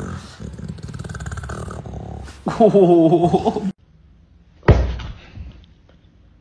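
A grey pit bull-type dog and a man vocalizing face to face with growls and grumbles, then a loud wavering howl-like cry for about a second that cuts off abruptly. About a second later comes one sharp slap from a hand.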